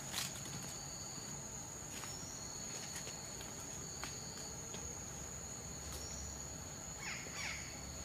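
Steady high-pitched drone of forest insects, with a second, lower insect tone cutting in and out. Scattered snaps of twigs and leaves as someone walks away through the undergrowth, the sharpest just after the start. A bird gives two short calls near the end.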